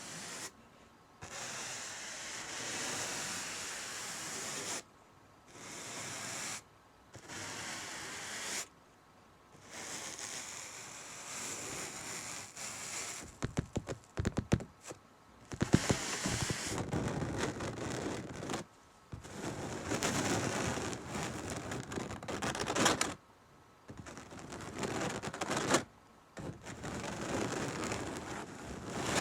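Long scratchy strokes rubbed across canvas fabric, each lasting a few seconds with short pauses between. From about halfway the strokes turn quicker and crackly, with sharp spikes.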